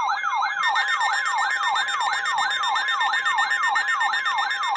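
Weather alert radio's electronic alarm, signalling a severe thunderstorm warning: a loud siren-like tone sweeping up and down about three times a second over a steady tone.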